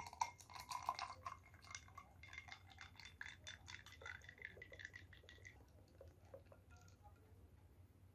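Litchi juice poured from a jug into a glass over ice cubes: faint trickling with the ice clinking against the glass, and a tone that rises as the glass fills. The pour stops about six seconds in.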